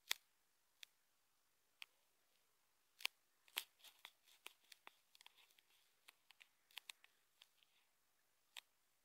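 Light, irregular taps and clicks on a phone's touchscreen, about a dozen spread over near silence. They come in a busier cluster from about three to five seconds in.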